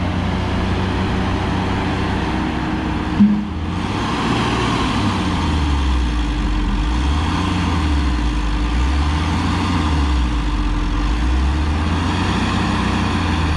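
Heavy engines of a loaded Tata 1613 CNG tipper truck stuck in sand and a crawler excavator pushing it, running together. From about five seconds in, the engine note rises and falls every couple of seconds as the truck strains to pull free. There is one short knock about three seconds in.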